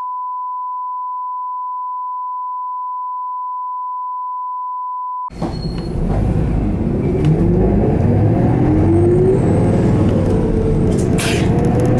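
A steady 1 kHz test tone for about five seconds, cut off suddenly by the running sound of a 2016 Isuzu Erga Hybrid (QSG-LV234N3) route bus heard from inside: a low drone with whines that rise in pitch as it drives, and a brief sharp noise near the end.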